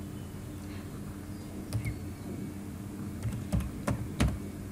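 Computer keyboard being typed: a few separate keystrokes, one a little over a second and a half in and a quick run of them in the second half, over a faint steady low hum.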